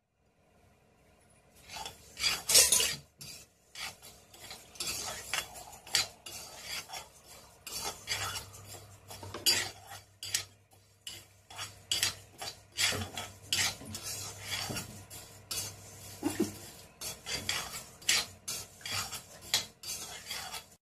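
A steel spoon stirring and scraping split moong dal around a black kadai as the dal is dry-roasted, in a string of irregular scrapes with the grains rustling against the pan. It starts about a second and a half in.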